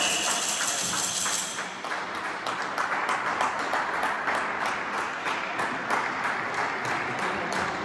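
Echoing clatter of a floorball game in a sports hall: a dense, irregular patter of sharp clicks and taps from sticks, ball and shoes on the court, thickening about two seconds in.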